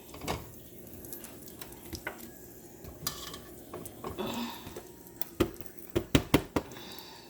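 Utensils and cookware clattering and knocking against pots and pans, with a quick run of sharp knocks near the end.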